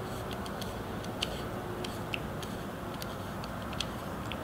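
Small, irregular metallic ticks of a Torx driver bit working a folding knife's pivot screw, with a few sharper clicks, against a steady hiss.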